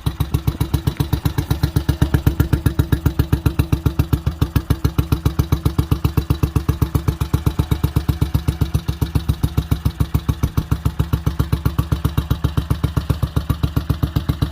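1951 BMW R25's single-cylinder four-stroke engine idling with a steady, even beat.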